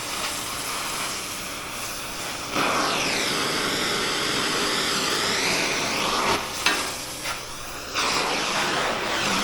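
Gas torch flame hissing steadily as it heats a steel bar for bending. It gets louder a few seconds in and again near the end, with a few light knocks in between.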